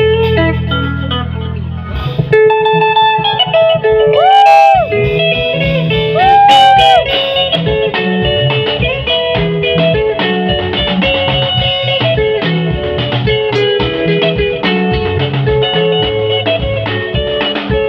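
Guitar music: an electric guitar playing a lead line of plucked notes, with two bent notes that rise and fall back about four and six seconds in.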